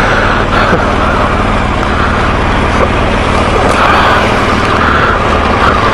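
BMW R1200GS Adventure boxer-twin engine running steadily, with heavy wind noise rushing over the camera microphone.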